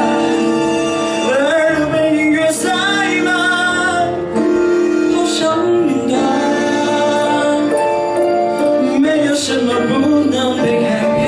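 A man singing into a microphone over instrumental accompaniment, with long held notes.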